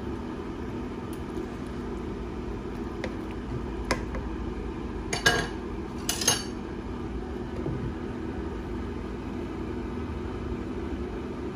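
Two sharp clinks of cookware against a metal cooking pot, about five and six seconds in, over a steady low hum and a few faint ticks.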